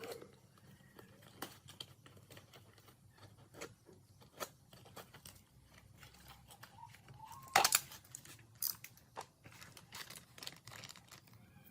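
Hand work on small parts: scattered light clicks, taps and crinkling, with one sharper click about seven and a half seconds in.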